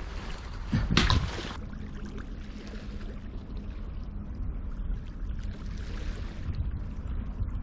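Water sloshing and lapping along the shore, with a brief louder rush of noise about a second in and a faint steady hum under it.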